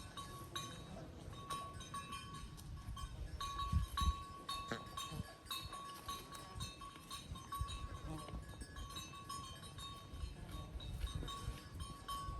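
Cowbells on grazing cattle clanking irregularly, each strike ringing at the same pitch, with a couple of low thumps about four seconds in.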